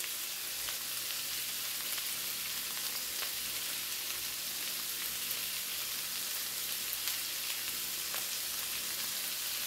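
Shredded rotisserie chicken frying in olive oil in a skillet: a steady, high sizzling hiss with a few faint crackles.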